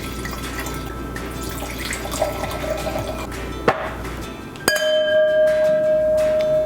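White wine poured into glasses over background music, with a sharp glass clink a little past the middle. About three-quarters of the way in a loud, steady ringing tone starts and holds.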